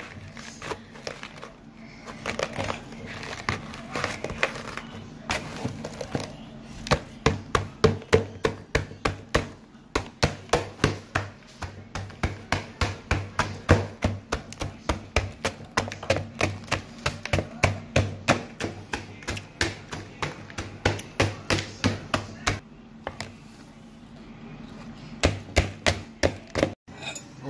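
Metal potato masher pounded again and again into chocolate sandwich cookies in a plastic bowl, crunching them into crumbs: a run of sharp knocks about two or three a second, with a short pause near the end.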